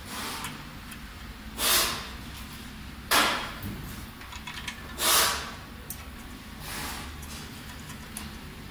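Handling noise as hands fit a bolt into a steel stand frame: five short scraping swishes a second or two apart, one of them starting with a sharper knock about three seconds in, over a low steady hum.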